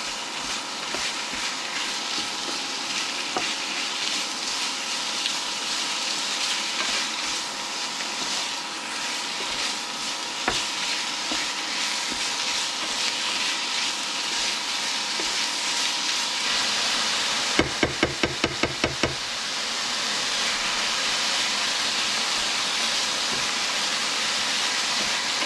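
Chicken pieces and onions sizzling steadily as they fry in a pan. About 18 s in there is a quick run of about eight sharp knocks.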